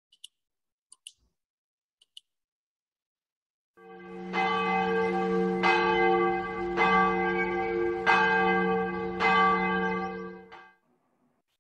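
A large church bell tolling: about five strokes roughly a second apart, each ringing on into the next, then dying away. It is preceded by a few faint clicks.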